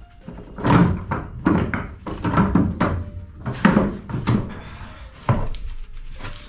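Irregular wooden knocks and thuds as a homemade wooden trolley is set down and a heavy old generator is worked onto it, about half a dozen clunks with a short scrape shortly before five seconds in.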